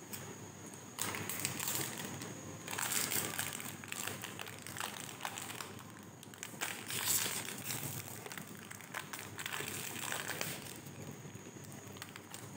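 Foil-lined plastic snack wrapper crinkling in irregular bursts as it is handled and pulled open.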